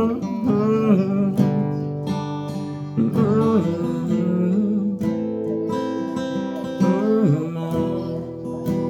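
Music: an instrumental stretch of a song on strummed acoustic guitar, with a melody line that bends in pitch over sustained chords.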